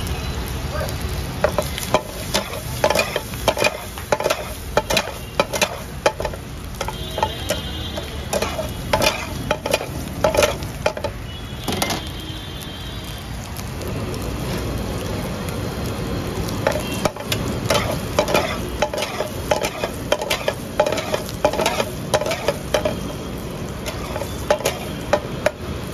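Sliced kebab pieces sizzling as they fry in butter in a steel frying pan, with a metal spatula repeatedly clicking and scraping against the pan as they are stirred.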